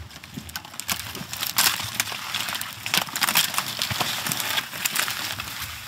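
Pine branches brushing and twigs crackling and snapping as someone on foot pushes through dense conifers, with footsteps on the forest floor. The crackling is irregular and comes in many quick snaps.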